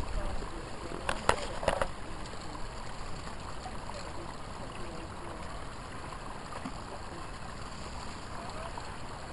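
Dry brush and twigs cracking underfoot in a short cluster of sharp snaps about a second in, over a steady rushing background noise.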